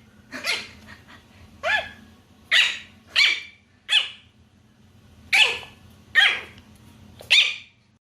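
A dog barking, about eight short, sharp barks at irregular intervals, over a faint low hum.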